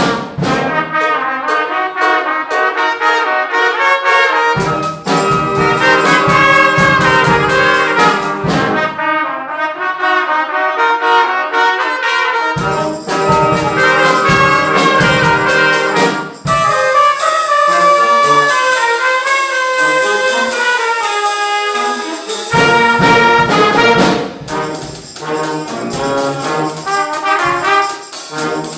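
A school band playing a brass-led piece, trumpets to the fore, with a percussion beat and low parts that drop out and come back in several times.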